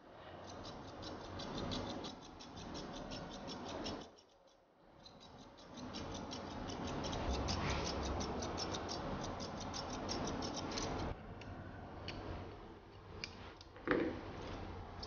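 Curved steel grooming scissors snipping a poodle's coat in quick, even strokes, pausing briefly about four seconds in.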